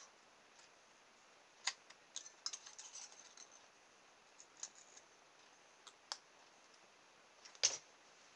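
Small scissors snipping thin aluminium drinks-can sheet, cutting out a tiny propeller: a scattering of short, sharp snips and clicks, with the loudest near the end.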